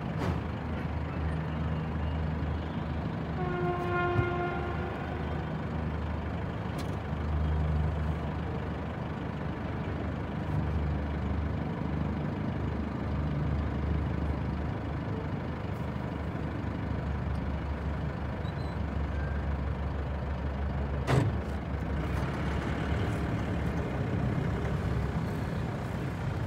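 Engine of the parasail tow vehicle running steadily. A short pitched tone sounds about four seconds in, and there is a single sharp click about twenty-one seconds in.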